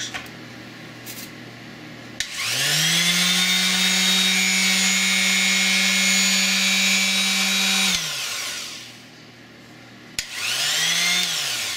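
Ryobi CFS1503G corded corner cat detail sander run unloaded in the hand. It clicks on about two seconds in, and the motor rises to a steady high whine for about five seconds. It then clicks off and winds down, and a second click near the end starts a brief run that rises and falls away again.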